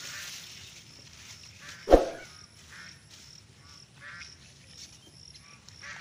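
Hands rustling long grass while covering a bamboo fish trap, with one short, loud sound about two seconds in.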